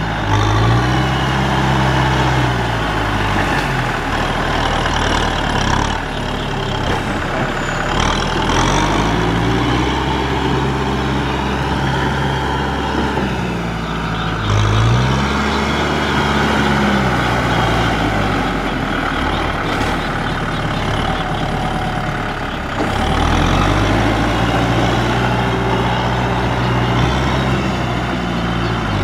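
Tractor engine working hard under load in deep mud, its pitch rising and falling repeatedly as it revs, with a few sudden changes in sound.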